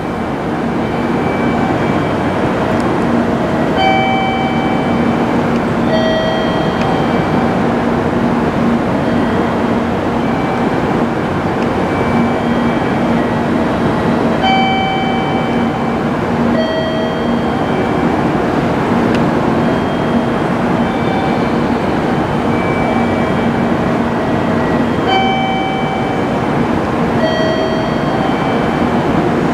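Steady railway-station platform background noise with a low hum, broken by a short electronic two-note chime that repeats about every ten seconds.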